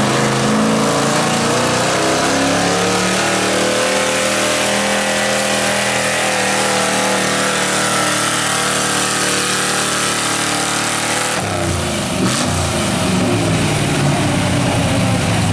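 A 1993 Ford pickup's engine running hard at full throttle under the heavy load of a pulling sled, loud and steady. About eleven seconds in the throttle is let off and the engine drops back to a lower, rougher idle as the pull ends.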